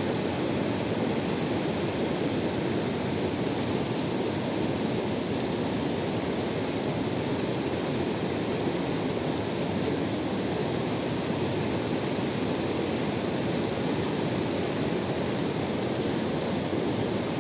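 Steady rushing of a fast-flowing river running over rocky rapids.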